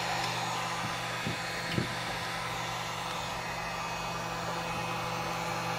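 Heat gun blowing a steady hiss of hot air onto the back of a TV circuit board, with a light knock just under two seconds in.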